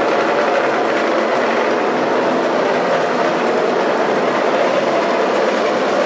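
A loud, steady mechanical running noise that does not change.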